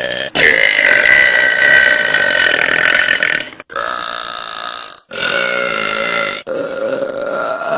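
A person burping several times in a row: one long drawn-out burp of about three seconds, then shorter burps of a second or so, separated by brief breaks.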